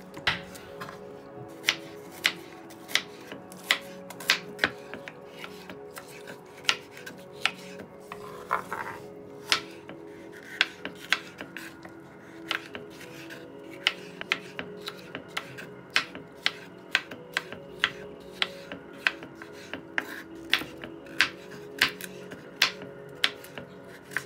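Chef's knife chopping bell pepper and carrots on a wooden cutting board: sharp, irregular knocks of the blade striking the board, about one to two a second.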